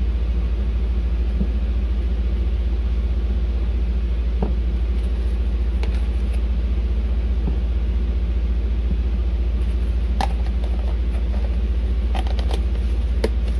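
A steady low hum, with a few light clicks and taps as a plastic food container and its lid are handled, several of them in the last few seconds.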